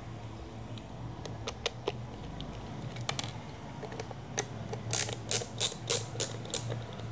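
A string of sharp small clicks and ticks, with a quick run of about six louder clicks near the end, like the small plastic parts and tools of a portable speaker being handled during a teardown.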